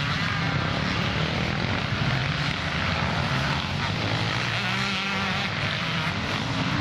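Several motocross bikes' engines running hard and revving as the bikes race past on the dirt track, their pitch rising and falling with the throttle, with more bikes running further off.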